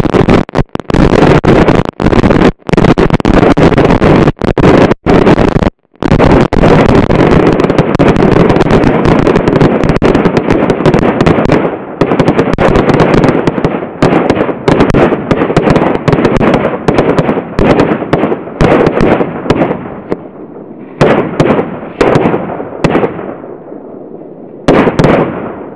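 A bundle of about ten thousand firecrackers taped together, exploding in a dense, continuous rattle of bangs. After about twelve seconds it thins out into scattered, quieter pops, with a couple of short flurries near the end.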